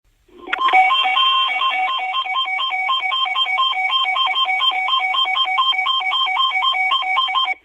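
Emergency alert attention tone: a loud electronic warble of two pitches alternating a few times a second, holding for about seven seconds and then cutting off suddenly.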